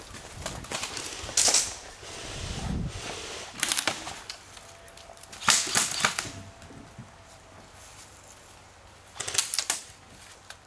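Airsoft guns firing short rapid bursts of clicking shots, four bursts spread out, each a quick cluster of sharp cracks.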